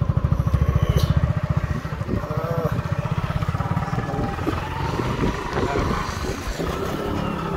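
Motorcycle engine running as it is ridden, a fast low putter that is even for the first second or so and then grows uneven.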